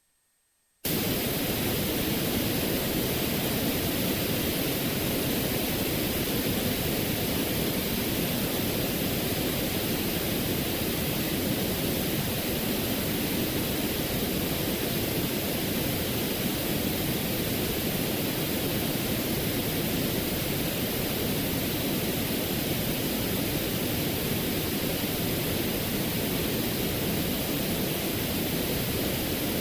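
A steady hissing noise from a sound-effect clip, starting about a second in and holding an even level with no rhythm or change.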